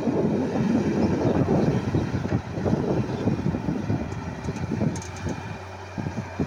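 Hitachi wheeled excavator's diesel engine running under load as the bucket digs into sand, a rough, uneven rumble that eases about four seconds in, leaving a steady low hum.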